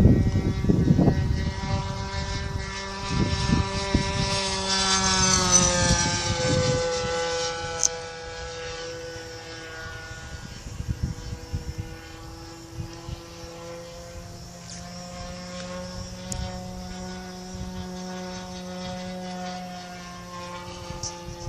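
Radio-controlled model airplane's glow engine in flight, its tone falling in pitch as it passes about five seconds in, then running steadily farther off. Wind buffets the microphone in the first few seconds.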